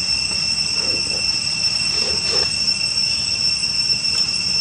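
Steady high-pitched insect chorus, several constant tones held without a break, over a steady low rumble.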